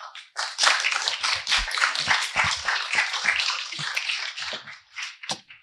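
Audience applauding: many hands clapping together, thinning out to a few last separate claps near the end.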